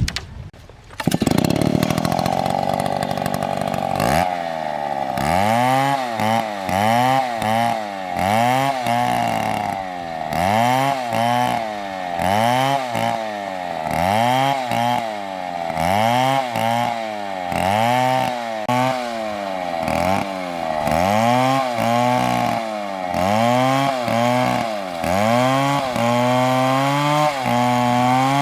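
MS720 two-stroke chainsaw at full throttle, cutting wood. From about four seconds in, its engine pitch dips and rises again about once a second.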